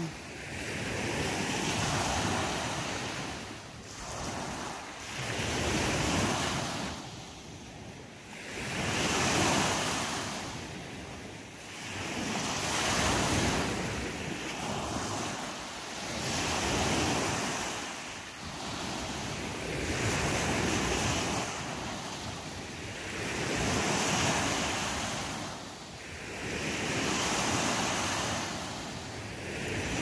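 Small waves breaking and washing up a sandy beach. The surf swells and falls back in a slow rhythm, a new surge about every three to four seconds.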